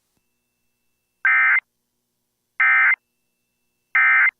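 Emergency Alert System end-of-message signal: three short, identical bursts of digital SAME data tones, each under half a second and about a second apart, marking the end of the alert broadcast.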